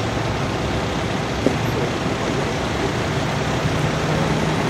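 Steady roar of motorway traffic, with a low steady hum underneath and a single short knock about one and a half seconds in.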